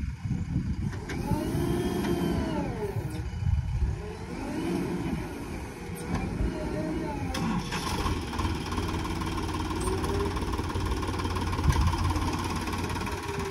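Heavy diesel engine revving up and falling back again and again over a steady low rumble, as on a tractor or backhoe loader working under load.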